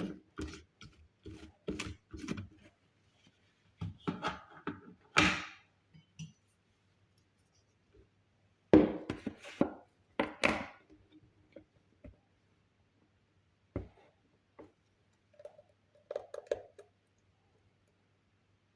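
Kitchen utensils and containers being handled: scattered knocks and clunks with quiet gaps between. There is a cluster near the start, louder ones around the middle, and a few faint taps later.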